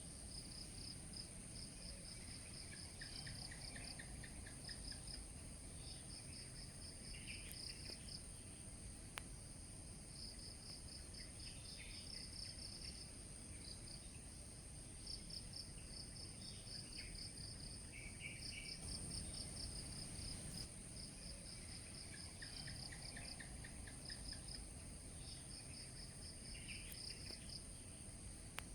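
A faint chorus of chirping insects: repeated trains of rapid high chirps over a steady, very high-pitched drone, with a few short lower chirp series and three faint sharp clicks.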